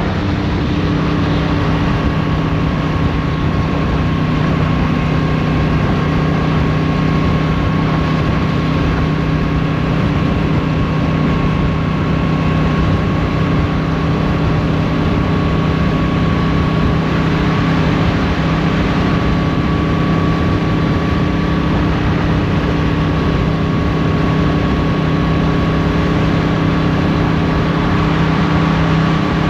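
Motorcycle engine running at a steady cruise at highway speed, its pitch holding constant, with rushing wind and road noise.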